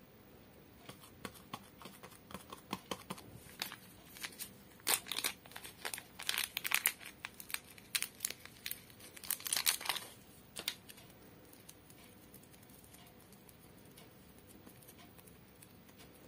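Soft modelling clay crackling and crinkling as hands pull and peel it apart: a dense run of small sticky crackles that grows louder in the middle and stops about eleven seconds in.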